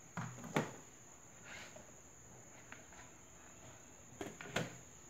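Light plastic and cardboard knocks and scrapes as a plastic bowl, and later a paper sheet, are lifted off the top of a cardboard-box incubator. They come in two short bursts, just after the start and about four seconds in, over a steady faint high whine.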